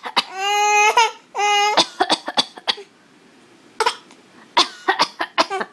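Baby giving two short, high-pitched cries, then coughing in quick runs of short coughs from about two seconds in, with a few more coughs near the end.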